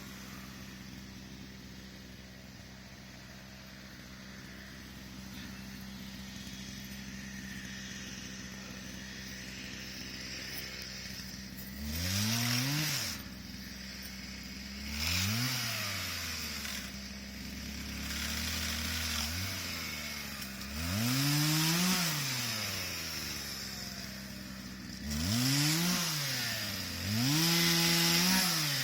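Two-stroke chainsaw idling steadily, then revved up and down in repeated bursts from about twelve seconds in. The last revs near the end are held longer.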